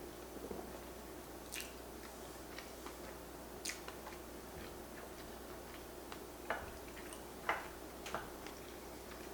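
Close-up eating sounds: soft chewing with wet, sticky mouth clicks and smacks from pancakes coated in peanut butter sauce. The clicks come scattered and irregular, with a few sharper ones in the last few seconds.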